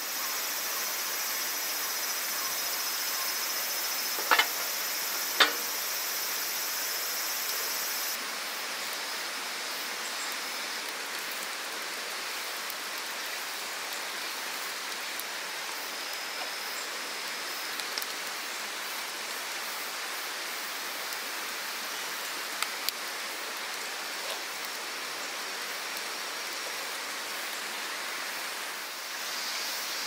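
Steady rushing of a river, with a few sharp clicks and knocks of camping gear being handled, the loudest two about four and five seconds in. A high steady hiss sits over the first eight seconds and cuts off suddenly.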